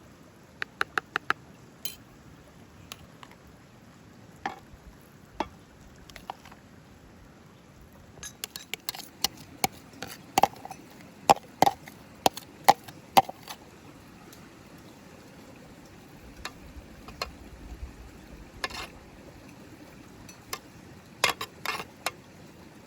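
Irregular taps, knocks and clinks of cooking utensils against dishes and a board during food preparation, with a quick run of four taps near the start and a busy, ringing stretch in the middle.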